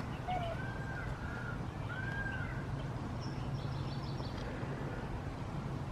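Birds calling outdoors: a few short, arched calls repeated in the first two and a half seconds, then a quick run of high chirps, over a steady low rumble.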